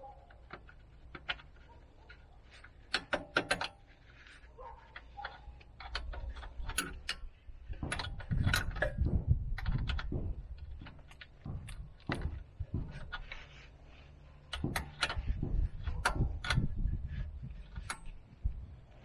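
Metal hand tools and suspension parts clinking, clicking and knocking during hands-on work on a car's rear suspension, in irregular clusters of sharp clicks with some heavier thuds.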